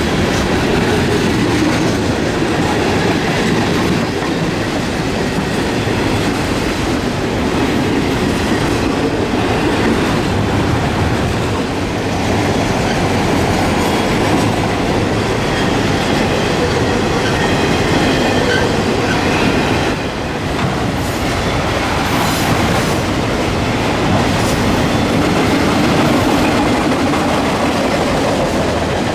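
Cars of a mixed manifest and autorack freight train rolling past close by: a steady loud rumble of steel wheels on rail, with clickety-clack over the rail joints and a faint wheel squeal now and then.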